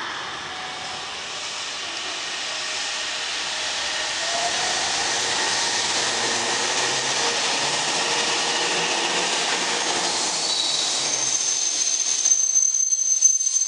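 Meitetsu 3300-series electric train moving out past the platform, its running noise building over the first few seconds as it gathers speed, with a rising motor whine a few seconds in. A thin, high wheel squeal sounds in the last few seconds as the rumble thins out.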